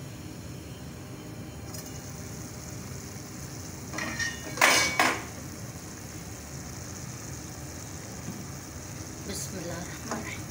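Steel-rimmed glass pot lid taken off a pot of simmering dal and clattering loudly with a metallic ring about four seconds in, over the steady sizzle of the lentils cooking. Near the end a wooden spoon knocks against the steel pot as stirring begins.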